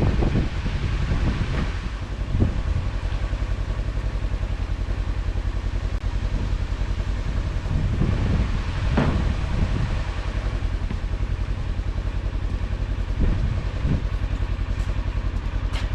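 The Ranger's engine runs steadily while it is being driven, with a few brief swells in level.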